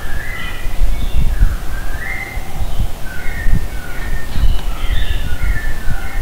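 Several birds calling over one another in short chirps and glides, with crow-like caws among them, over an irregular low rumble and thumps.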